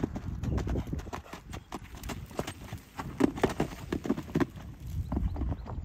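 Hoofbeats of a ridden horse cantering over grass and a gravel and sand surface: a run of irregular thuds and crunches.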